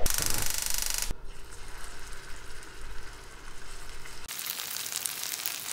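A gas stove burner hisses steadily under a frying pan for about a second, then stops abruptly. From about four seconds in, hot oil sizzles and crackles as cottage-cheese patties (syrniki) are laid into the pan to fry.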